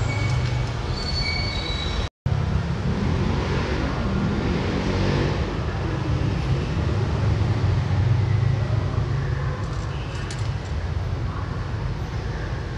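Steady low rumble of outdoor traffic noise, cutting out for a moment about two seconds in.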